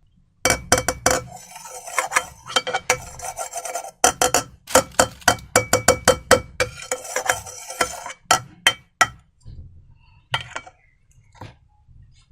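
Slime being squeezed and worked by hand, giving rapid sticky crackling and clicking in two long runs, then a few scattered clicks near the end.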